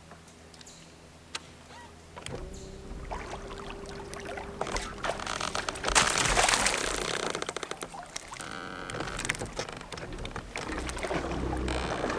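A small bass hooked on a jig being reeled in on a baitcasting rod, with the reel winding and a loud burst of splashing about six seconds in as the fish reaches the surface.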